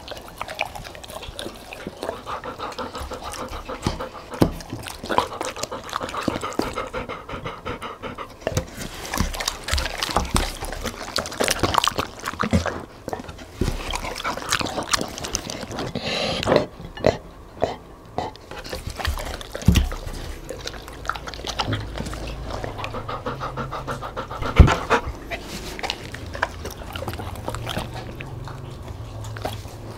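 A golden retriever and a Labrador eating spaghetti: many quick wet chewing clicks, smacks and slurps, with panting in between. One sharp, loud knock about twenty-five seconds in.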